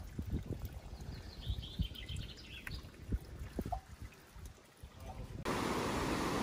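Faint water trickling down a rock face into a bottle, with wind rumble on the microphone. About five seconds in it cuts suddenly to the steady rush of a mountain river.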